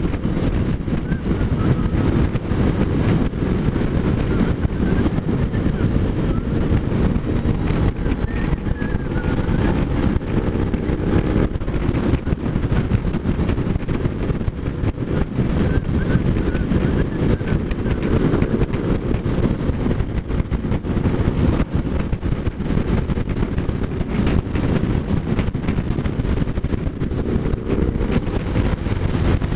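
Steady wind noise buffeting the microphone of a Kawasaki motorcycle riding at road speed, with the bike's engine drone faint beneath it.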